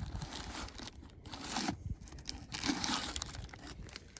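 Plastic zip-top bag crinkling in several short bursts as it is handled, with a trail register book being taken out of it.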